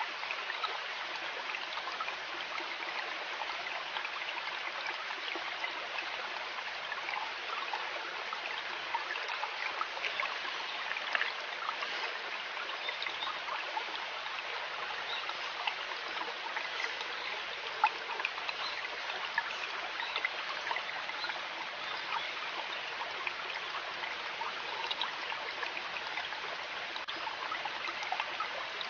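River water running steadily, a continuous rushing babble flecked with many small splashes and drips.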